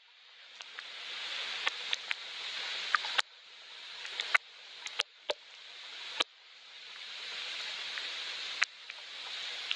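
Rain hiss with sharp individual drops ticking, about a dozen of them. The hiss keeps swelling slowly and then dropping off abruptly, about five times.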